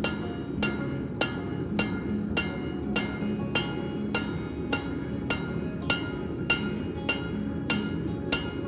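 Hand hammer striking a glowing 1/2-inch round bar on an anvil at a steady pace, a little under two blows a second, each blow ringing briefly, over a steady low rumble.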